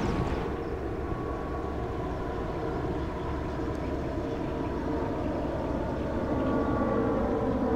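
Airbus A330 jet engines heard from below as the airliner climbs after takeoff: a steady rumble with a few held whining tones, growing a little louder near the end.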